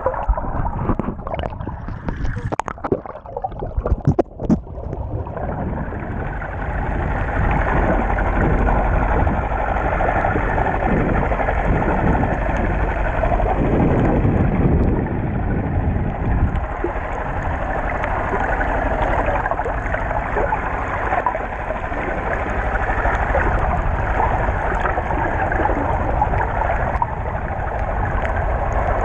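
Steady, muffled water noise recorded underwater through an action camera's waterproof housing. A few knocks and splashes come in the first five seconds, with the muffled rush alone after that.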